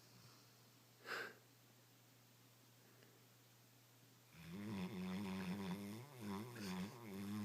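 Greater Swiss Mountain Dog snoring. There is a brief whoosh about a second in, then, from a little past halfway, a low, buzzing snore that swells and fades in three pulses.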